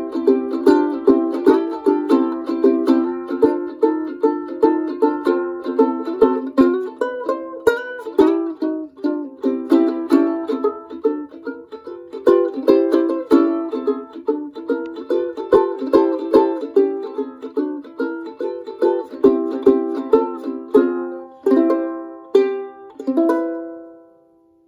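Late-1920s Oscar Schmidt "Sovereign" banjo ukulele (banjolele) strummed in a steady rhythm of chords, about two strums a second. It ends on a final chord that rings and fades away near the end.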